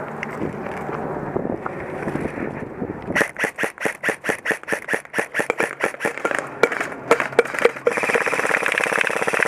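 Airsoft guns firing: after about three seconds of steady noise, sharp shots at about six a second, turning near the end into a continuous full-auto burst.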